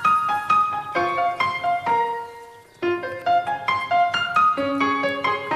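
Background piano music: a light melody of quick single notes, with a short pause a little before halfway.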